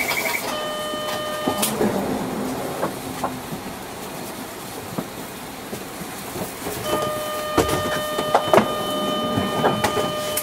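Inside a Mitsubishi Aerostar one-step city bus: a steady electronic buzzer tone sounds for about a second, then again for about four seconds, amid sharp clicks and knocks from the bus's fittings and a low running hum.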